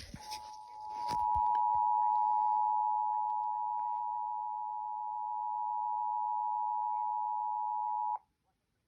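Emergency Alert System two-tone attention signal: a steady, piercing dual tone that swells up over about a second, holds for about eight seconds, then cuts off sharply. It signals that a severe thunderstorm warning message is about to be read.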